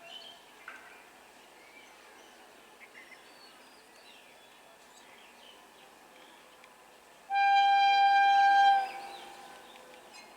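A train horn sounding one long steady blast of about a second and a half, about seven seconds in, fading with an echoing tail. Before it, faint bird chirps over quiet outdoor background.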